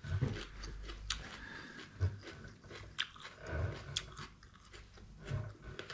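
Someone chewing a mouthful of raw red bell pepper, with irregular crunches and clicks.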